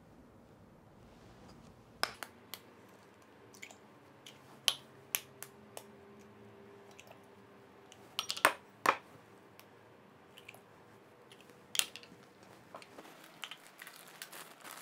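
Hen's eggs being cracked open into a mixing bowl: scattered sharp taps and shell cracks, loudest in a cluster about eight to nine seconds in.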